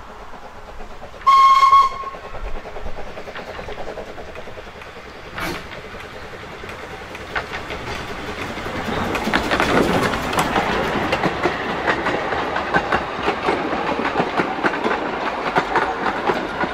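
A 2 ft narrow-gauge steam locomotive gives one short whistle blast about a second in, then draws near and passes with its train of coaches. The wheels click over the rail joints, building to a steady clatter as the coaches roll by.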